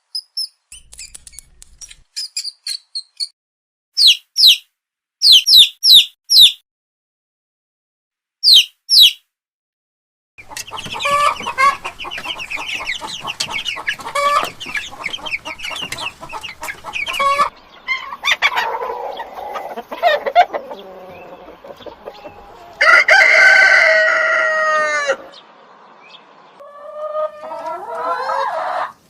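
Chickens calling: hens cackling and clucking, then one long loud crow from a rooster about two-thirds of the way through. Before the chicken calls, in the first several seconds, come short, very high squeaks in quick groups.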